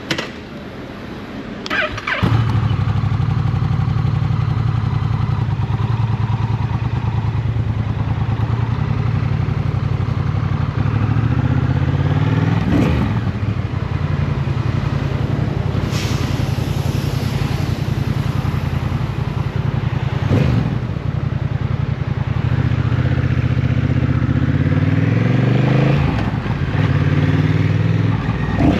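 Motorcycle engine running at highway speed, loud from about two seconds in. Its pitch rises as it accelerates near the end, and there are a few quick sweeps down in pitch along the way.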